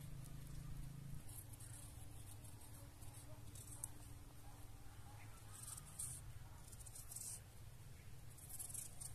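Faint, soft scraping sounds of salad vegetables being prepared, coming several times at irregular intervals over a low steady hum.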